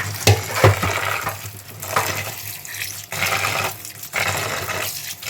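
Running tap water splashing over grated snake gourd in a perforated plate as it is rinsed by hand, coming in irregular bursts, with a couple of sharp knocks in the first second.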